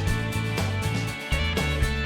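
Background music: a guitar-led country-style track with a steady beat.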